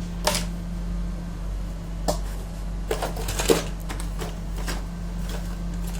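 Hands handling the opened flatbed scanner's parts: a handful of short, sharp clicks and knocks, the loudest about three and a half seconds in, over a steady low hum.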